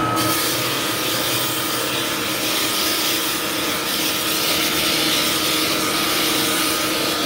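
Drum floor sander with a 24-grit drum cutting into warped mahogany deck boards: a steady, coarse grinding rasp over the machine's motor. It begins abruptly and cuts off sharply at the end.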